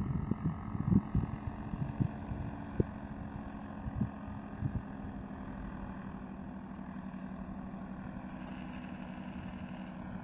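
Paramotor trike engine and propeller droning steadily as it flies past, its pitch drifting slightly lower over the first several seconds. Gusts of wind buffet the microphone during the first five seconds or so.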